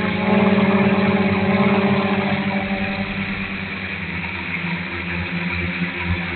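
Dromida Vista FPV quadcopter's electric motors and propellers heard through its onboard camera: a loud, steady buzzing hum whose tone weakens slightly and turns less steady about three seconds in.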